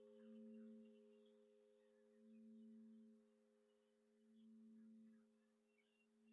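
Near silence, holding only the very faint lingering hum of a bell's ring dying away, a few steady low tones with the lowest one swelling and fading about every two seconds.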